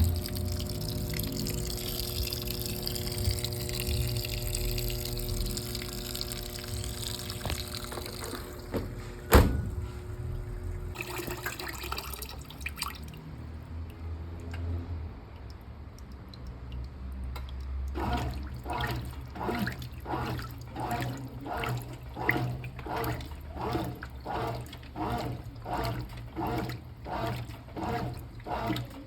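Brastemp Clean washing machine on a delicate cycle: water runs into the tub with a steady hum, a sharp click comes near the middle, and about two-thirds of the way in the washing action starts, swishing the load back and forth in an even rhythm a little faster than once a second.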